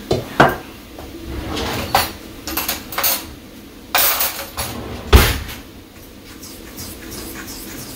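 Metal kitchenware being handled: a small metal measuring cup knocking against a stainless steel mixing bowl, silverware rattling in a cutlery drawer with a solid thump about five seconds in, then a fork scraping and stirring in the steel bowl as water is worked into flour-and-butter pie crust dough.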